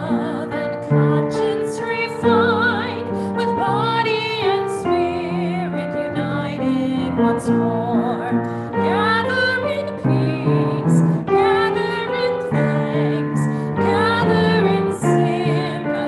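A woman singing a slow hymn with vibrato over piano accompaniment.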